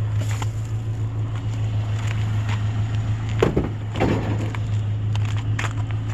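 Pickup truck engine running with a steady low hum, with a couple of short knocks or rattles about halfway through.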